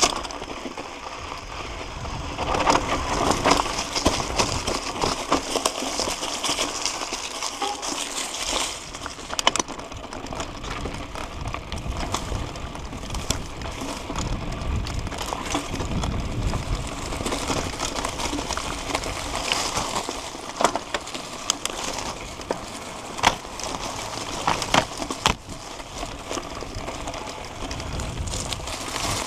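Mountain bike rolling over a dry dirt trail: tyres crunching on grit and the bike rattling, with many sharp clicks and knocks over bumps.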